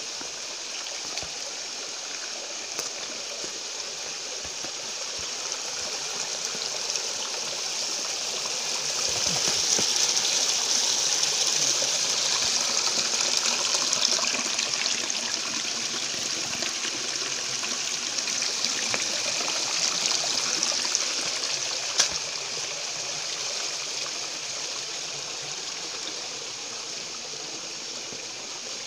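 Shallow river water running and trickling over stones, growing louder through the middle stretch and then easing back. A single sharp click about two-thirds of the way through.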